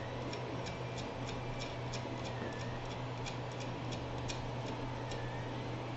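Light, irregular clicks and ticks of small metal hardware being handled as M4 nuts are fitted onto the screws of the 3D printer's bed plate, over a steady low hum. The clicks come in quick clusters and thin out near the end.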